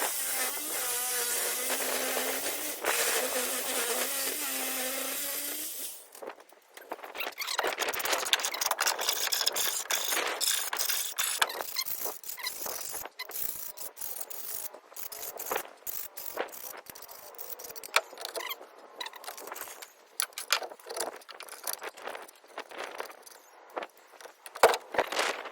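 A power tool runs with a high hissing squeal for about six seconds and then stops. Irregular clattering, scraping and knocking follow.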